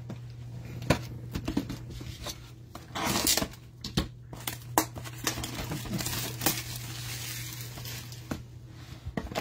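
A trading card pack wrapper being torn open and crinkled by hand, with a few sharp clicks and a louder rustling swell about three seconds in, over a steady low hum.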